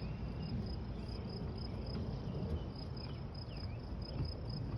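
Outdoor insect chirping: a high, even chirp repeating about three to four times a second, over a steady low rumble, with a few faint short bird-like calls.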